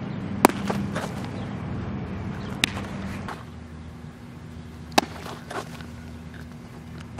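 Baseball popping into a leather catcher's mitt, three sharp smacks about two seconds apart.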